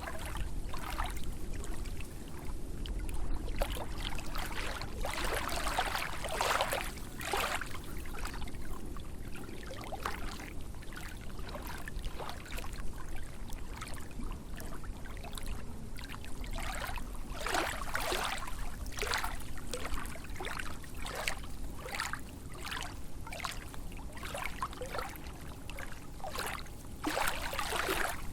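Small lake waves lapping and splashing, one slap every second or so, over a steady low rumble.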